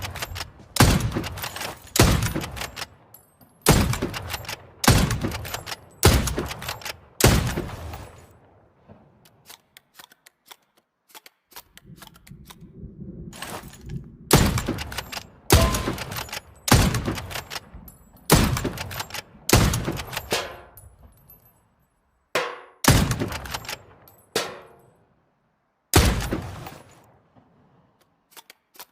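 Hunting rifle gunshot sound effects: a run of about seven shots roughly a second apart, each a sharp crack with a fading echo tail. A pause follows with only faint small clicks, then another run of shots.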